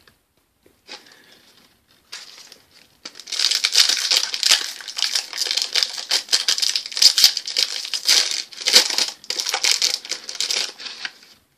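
Plastic hockey card pack wrapper crinkling as it is handled, with a few faint rustles and then dense crackling starting about three seconds in and stopping just before the end.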